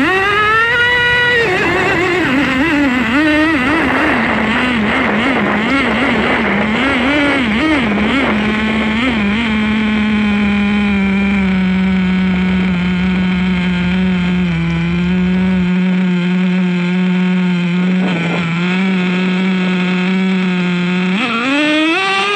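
Small two-stroke nitro engine of a radio-controlled truck, blipped up and down in pitch at first, then settling to a steady idle, and revved up sharply near the end.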